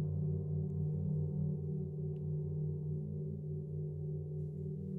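Earth and Moon planetary gongs ringing out in a sustained, steady drone of low tones, with an even throb in the lowest note and no fresh strike.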